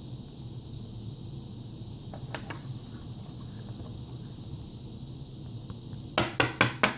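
Trading cards being handled: a few faint clicks about two seconds in, then near the end a quick run of about five sharp, loud rustling clicks as the cards are moved, over a steady low room hum and hiss.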